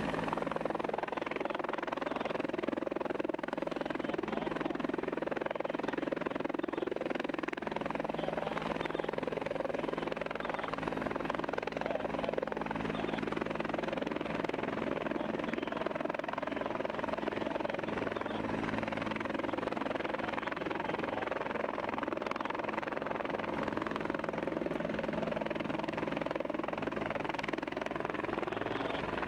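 A helicopter running steadily, its rotor and engine a continuous drone with a few steady low tones.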